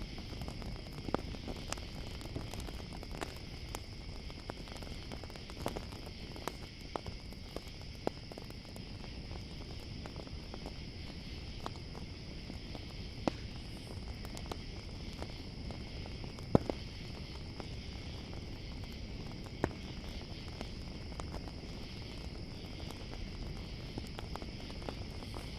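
A campfire crackling, with irregular sharp pops over a low steady hiss of burning, a few pops louder than the rest, set against a steady chorus of crickets chirping.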